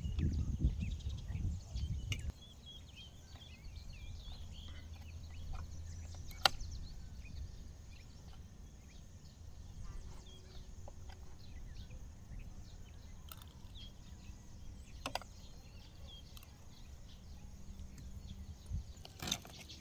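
Outdoor rural ambience with small birds chirping, a low rumble in the first couple of seconds, and a few sharp clinks of a metal fork and spoon against a plate.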